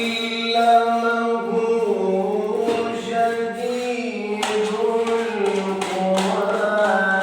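Unaccompanied singing, with long melodic notes held and sliding between pitches.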